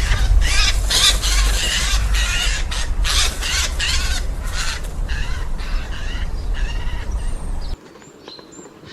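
Eurasian jay giving a run of harsh, rasping screeching calls over a steady low rumble of wind; the recording cuts off suddenly near the end.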